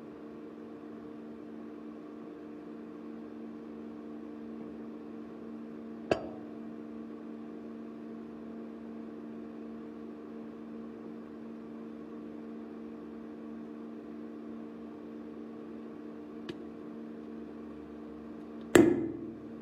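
Microwave oven running with a steady hum while an egg heats inside. A sharp pop comes about six seconds in and a faint tick later. Near the end a loud bang with a brief ringing tail is the egg bursting.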